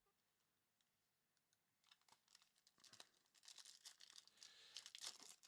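Faint crinkling and clicking of Topps Chrome trading cards and foil pack wrapper being handled, starting about two seconds in.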